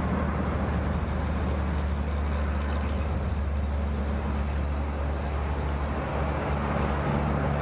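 A vehicle engine idling steadily, an even low hum with no change in speed.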